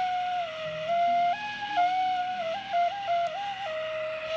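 A flute playing a short melody one note at a time, moving up and down by small steps, with a quick run of short notes past the middle.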